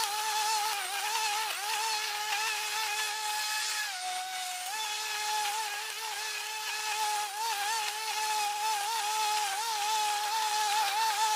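Snapper lawn mower running with a steady high whine that wavers a little in pitch, dipping briefly about four seconds in.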